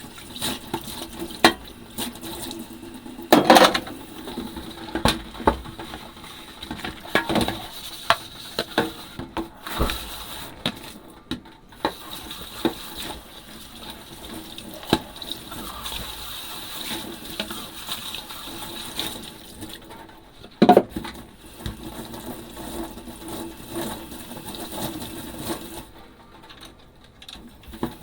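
Dishes being washed by hand in a kitchen sink under running water, with frequent clinks and knocks of ceramic and glass and two louder knocks, one early and one past the middle.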